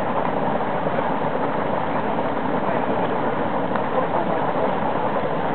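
Geothermal steam vent hissing steadily as a thick jet of steam rushes out from among the rocks.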